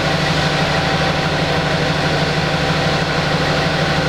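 School bus engine idling steadily, a constant low hum.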